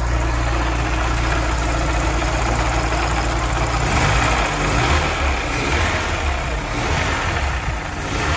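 Volkswagen Golf MK2 GTI's inline four-cylinder petrol engine running at idle, heard from over the open engine bay; its low note turns less even about halfway through.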